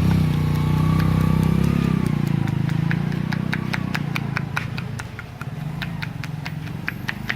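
A motor vehicle's engine running close by, loudest in the first couple of seconds and fading away after about five seconds. Quick light clicks run through it, about three a second.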